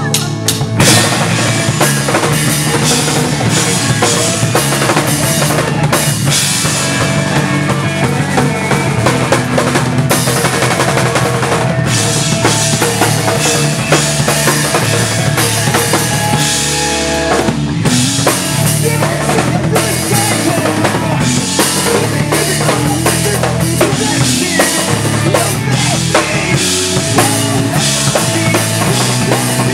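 Emo/math-rock trio playing live at full volume: drum kit, electric guitar and electric bass, with the drums prominent.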